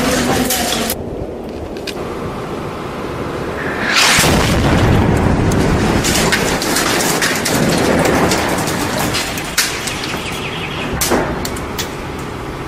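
Deep booming rumbles over a constant noisy roar, swelling louder about four seconds in, with scattered sharp cracks.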